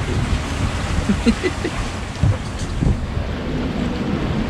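Strong wind buffeting the microphone and the sea rushing against a sailing yacht's hull in rough, windy conditions, with uneven gusty thumps.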